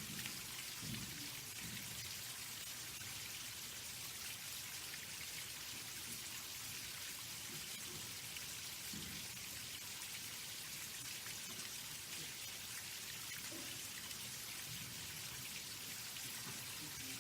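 Faint, steady hiss of water falling onto a pond's surface, with a few soft low thuds about a second in, around nine seconds and near fourteen seconds.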